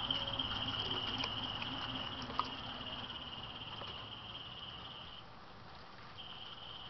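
A cricket trilling steadily in a high, even pulse, falling silent about five seconds in and starting again near the end.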